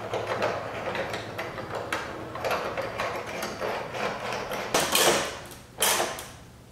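A hex driver turning screws into a carbon fiber wing's stanchion mounts by hand: a run of small clicks and scrapes as the screws are started. Near the end come two louder rustles of the plastic sheet under the wing.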